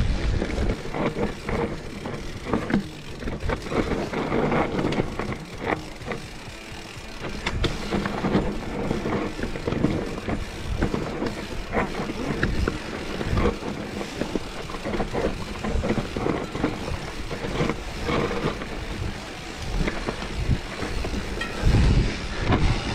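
Mountain bike being ridden over rough trail: an uneven rumble and rattle with frequent sharp knocks, and wind buffeting the microphone.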